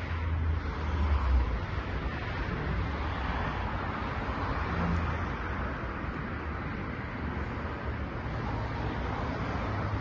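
Steady outdoor background noise: an even hiss over a low rumble, the rumble strongest in the first second and a half.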